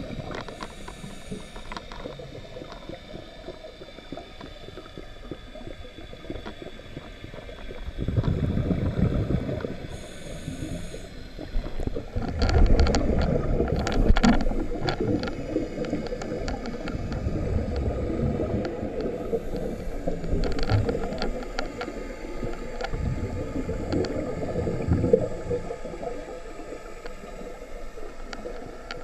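Scuba diver breathing underwater through a vintage Scubapro MK V regulator. Exhaled bubbles gurgle out in several rumbling bursts a few seconds apart, and the regulator gives a brief high hiss on the inhalations between them.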